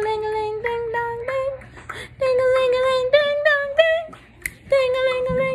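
A woman singing a short tune in a high voice, holding notes and breaking briefly between them.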